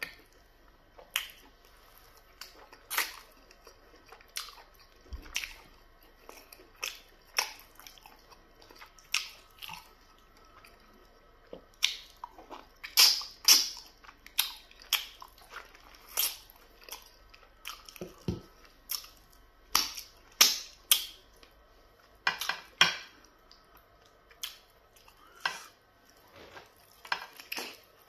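A person eating pounded yam fufu with black soup and goat meat by hand: wet chewing and lip-smacking mouth sounds in short, irregular bursts, roughly one a second.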